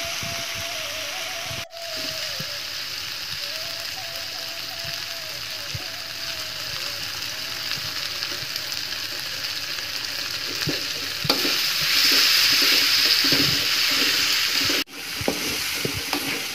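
Ground chili and spice paste with lime and bay leaves sizzling as it fries in oil in a wok, stirred and scraped with a metal spoon. The sizzle grows louder about two-thirds of the way through, and it breaks off for an instant twice.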